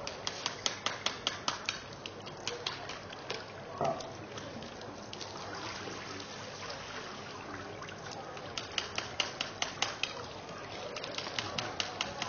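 Runs of rapid, sharp clicks, about six a second, stopping and starting several times, over a steady trickle of water.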